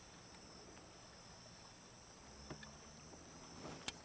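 Faint, steady high-pitched insect chirring from the riverbank, with a couple of light clicks near the end.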